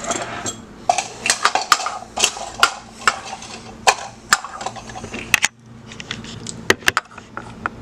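Irregular sharp clicks, knocks and light rattles of hard objects being handled close to the microphone, as when a camera is set up and adjusted.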